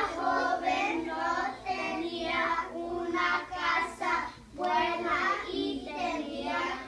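A small group of young children reading a paragraph aloud together in Spanish, in slow, drawn-out phrases with short pauses between them.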